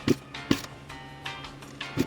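Background music with a beat: pitched notes over sharp percussive hits.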